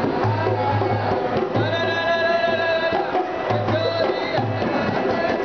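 Rajasthani folk music accompanying a puppet dance: a hand drum beats a steady rhythm under a melodic line, with one long held note about two seconds in.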